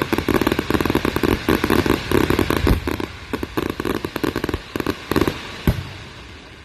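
Fireworks going off in a dense, rapid crackle of many small pops. The crackle thins out about five seconds in, followed by one sharp bang.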